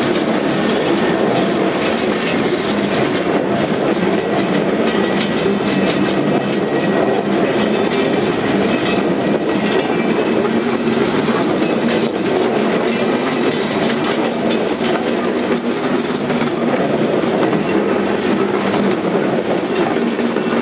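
China clay hopper wagons rolling past at a steady pace: a continuous rumble of steel wheels on rail with occasional clicks.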